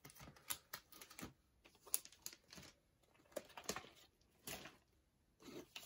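Faint crinkling and clicking of plastic-packaged craft die sets being handled and shuffled on a tabletop, in scattered short bursts with brief pauses between.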